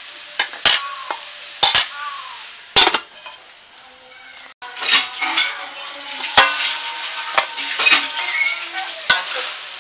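Metal spatula clanking against a large aluminium karahi, a few sharp strikes with brief ringing in the first three seconds. About halfway through, chopped onion leaves sizzle loudly as they fry and are stirred, with the spatula scraping and knocking the pan.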